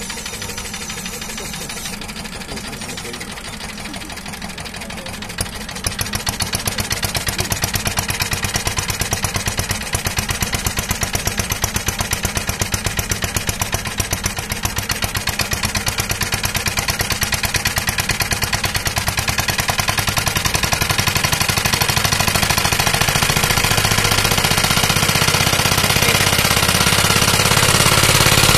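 Single-cylinder test engine running during the changeover from methanol to propane fuel. About five seconds in, its sound turns abruptly into a louder, sharp, even firing beat, which keeps getting louder toward the end.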